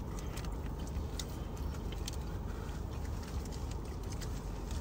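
Small clicks, smacks and rustles of people eating a seafood boil with plastic gloves on, over a steady low rumble of a car's cabin.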